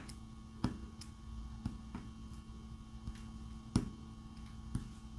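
Diamond-painting drill pen pressing resin drills onto the canvas: about five light clicks at uneven intervals, the strongest about three and a half seconds in, over a faint steady hum.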